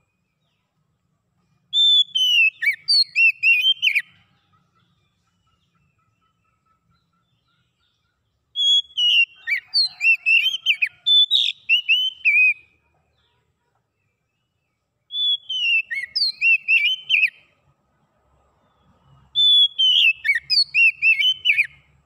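Oriental magpie-robin singing in four phrases, each a fast run of clear whistled notes that swoop up and down, with pauses of a few seconds between them. The second phrase is the longest, lasting about four seconds.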